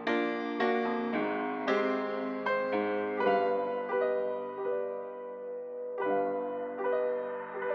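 Beat intro of a slow keyboard melody in a piano or electric piano sound, with a new note or chord struck every half second to a second and left to ring, without drums or bass.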